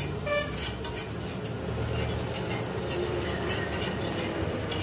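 A metal spatula clanking and scraping against a large flat iron griddle as noodles are stir-fried and tossed, in a string of sharp knocks over a steady hum of street traffic.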